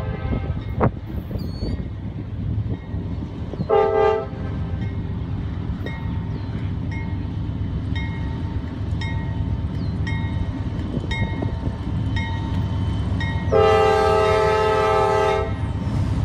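Norfolk Southern 9134 diesel locomotive leading a coal train through a grade crossing, sounding its horn: a long blast ending just as it begins, a short blast about four seconds in, and a blast of about two seconds near the end, over the steady rumble of the engine and passing cars. A crossing bell dings steadily in the background.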